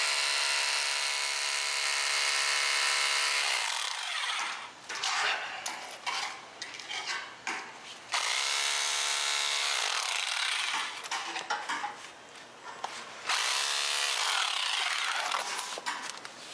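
A small electric power tool running in three bursts of a few seconds each, its motor winding down in pitch as each one stops, with irregular clattering and rustling in between.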